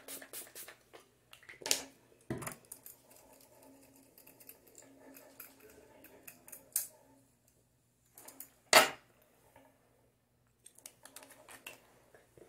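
Short sprays from a pump spray bottle of face mist, the loudest a little under 9 seconds in, among clicks, a knock and the handling of small skincare bottles and a face roller on a tabletop, over a faint steady hum.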